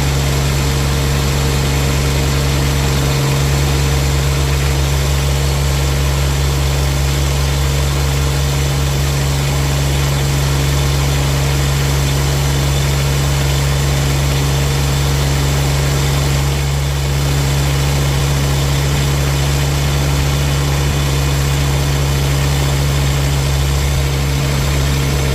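The AGT QK18KXS-C mini excavator's engine idling steadily with its new 100-amp one-wire alternator fitted, a test run with no shutdown.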